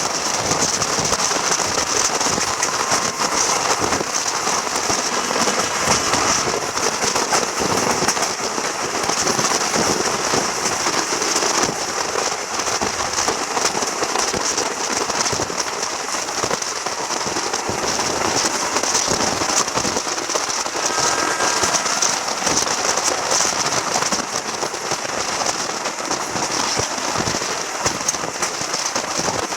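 Passenger train running, heard from on board: a steady rushing noise full of fine crackles.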